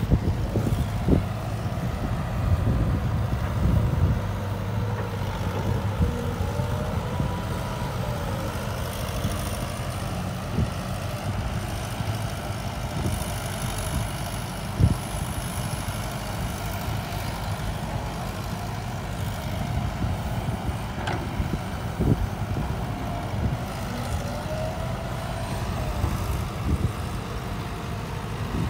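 Heavy diesel engines of a Hino Mega 500 dump truck and a Caterpillar tracked excavator running steadily while they work in soft dirt. There are occasional sharp knocks and a few short whines that rise and fall.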